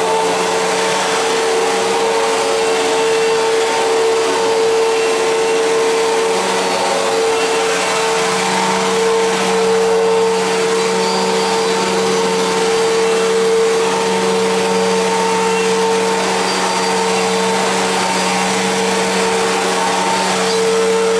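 Fantom Fury upright vacuum cleaner's motor running at full speed with a steady high whine. A lower drone under it grows stronger about eight seconds in. The owner says it doesn't sound right and wonders whether the motor's bearings or the suction motor itself are going bad.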